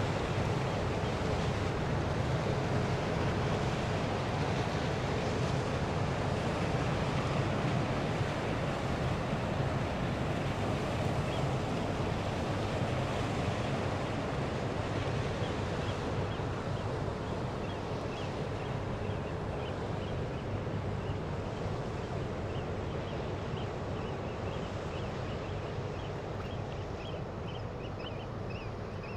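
River water washing and lapping against a stone breakwater in a light breeze, with a steady low rumble underneath; it eases off slightly over the second half. Faint, quick high chirps come in about halfway and grow denser near the end.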